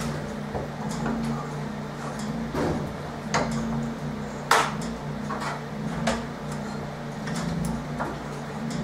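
Scattered metal clinks and knocks as a new hydraulic quick-hitch cylinder is handled and set onto its mounts on a JCB 190T track loader's attachment plate. The sharpest knock comes about halfway through, over a steady low hum.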